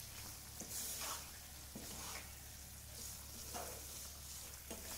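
Wooden spatula stirring and scraping thick moong dal halwa in a non-stick pan, several separate strokes over a faint steady sizzle of ghee on a low flame.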